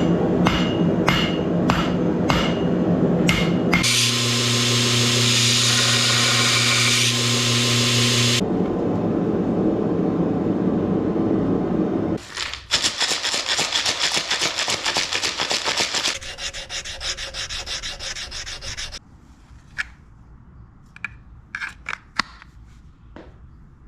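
Bladesmithing shop sounds in quick succession: a run of about five hammer blows, then a steady machine hum, then rough, fast rhythmic rubbing and sanding of the blade. The last few seconds are quieter, with a few scattered clicks.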